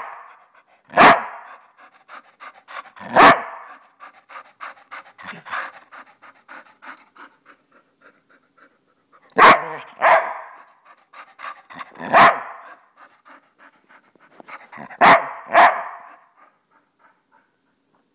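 Dog giving short loud barks, seven in all, some singly and some in quick pairs, with rapid panting between them.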